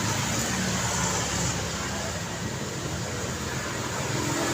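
Street traffic ambience: cars and motorcycles running by, a steady engine hum over road noise.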